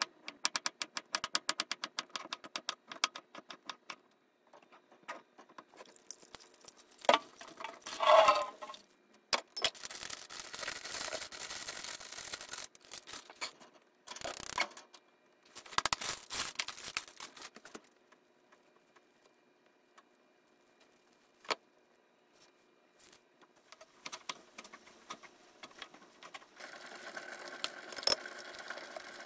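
Kitchen knife slicing boiled bamboo shoot on a plastic cutting board: quick, even taps for the first few seconds. Then scattered knocks, clatters and pouring and rustling as the bamboo, bonito flakes and water go into a small saucepan, and in the last few seconds a steady hiss from the pan heating on the gas burner.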